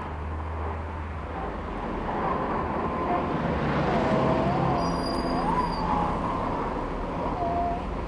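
Karachi tram's Perkins P4 diesel engine running with a low rumble as the tram moves along the street. From about two seconds in, a wavering high squeal rises and falls in pitch over the rumble.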